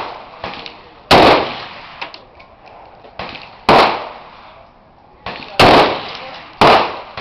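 AK-47 rifle fired in single shots, four loud reports about one to two and a half seconds apart, each with a short fading echo; a weaker report comes just before the third.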